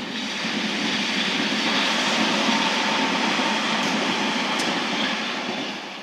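Tobu 100 series Spacia limited express train passing through a level crossing, a loud steady rush of wheels on the rails. It sets in suddenly and dies away near the end as the train clears the crossing.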